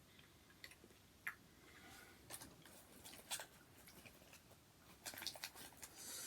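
A person chewing a piece of chocolate: faint, scattered mouth clicks, thicker about five seconds in.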